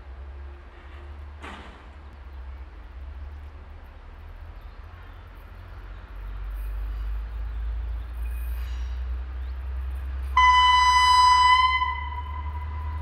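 Uerdinger railbus (class 798) diesel railcar approaching, its low engine rumble growing louder about halfway through. Near the end it sounds its horn, a single high note that is loud for just over a second, then held more faintly.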